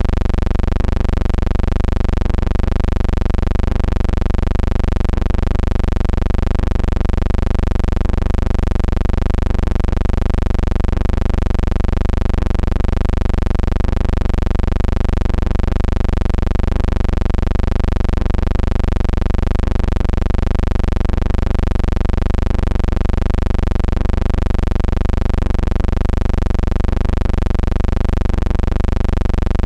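A steady, loud low hum with a buzzing stack of overtones that waver slightly, unchanging throughout.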